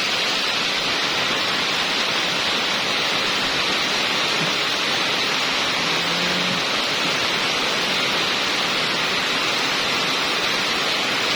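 Heavy rain pouring down at a steady, unbroken level.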